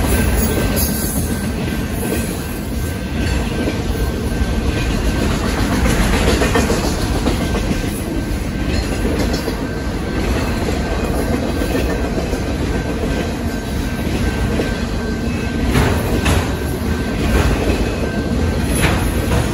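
Freight train of enclosed autorack cars rolling past close by: a steady rumble of steel wheels on rail, with clickety-clack over the rail joints and a few sharper knocks near the end.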